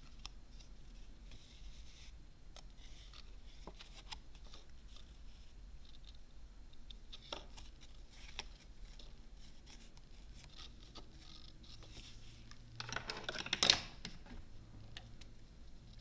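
Paper crafting handling: faint rustles and small taps of cardstock and satin ribbon being worked by hand, with one louder scraping rustle about three-quarters of the way through.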